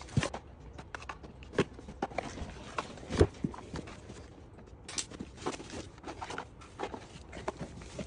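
Small Zippo lighter boxes and paper inserts being handled and packed into a cardboard carton: irregular light taps, clacks and rustles, with one louder knock about three seconds in.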